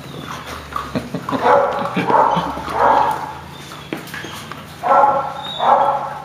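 Dogs barking: about five short barks, three close together in the first half and two more near the end.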